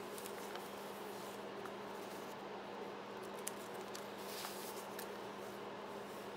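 Vintage paper documents being handled: a few light taps and a brief rustle in the second half as sheets are lifted and laid down, over a steady low hum.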